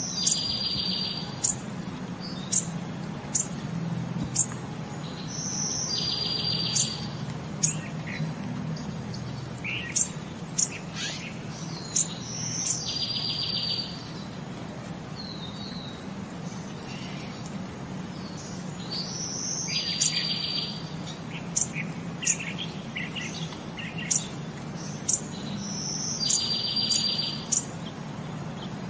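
Birdsong: sharp high chirps every second or so and a buzzy trilled note that comes back about every six seconds, in an even, repeating pattern over a faint steady low hum.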